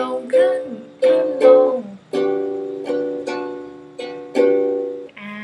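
Ukulele strummed chords in the down-up-up-down pattern, each strum ringing out and fading before the next.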